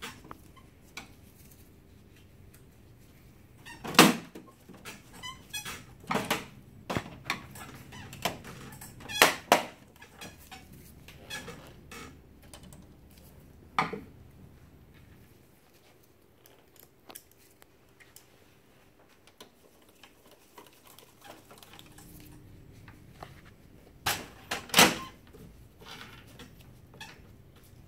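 Plastic covers and doors of an HP laser printer being handled and fitted back on: scattered sharp plastic clicks and knocks with quieter tapping between. The loudest come about 4 s in, around 9 s, and as a pair near the end.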